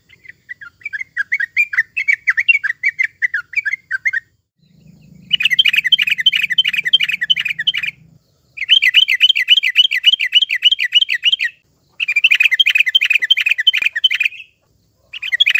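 Yellow-vented bulbul (trucukan) singing: phrases of rapid, repeated chattering notes, each about three seconds long, with short pauses between them. The first phrase is softer than the rest.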